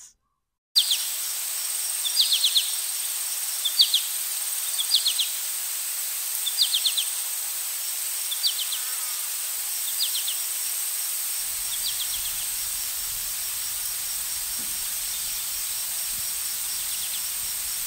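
Forest insects making a steady high-pitched drone, with a short rattling chirp repeating roughly once a second for the first ten seconds or so.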